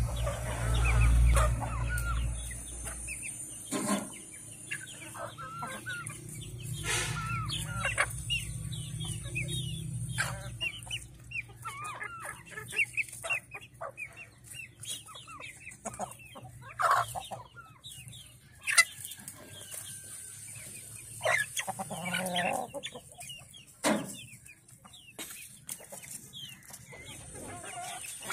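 Flock of domestic chickens, hens and roosters, clucking and calling as they feed, with a handful of sharp knocks and a low rumble in the first few seconds.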